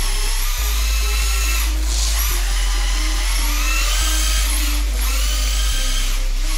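Electric motor of a 1/10 RWD RC drift car (MST RMX 2.0 kit) whining as it drifts at high speed on foam tires. The whine rises and falls in pitch with the throttle.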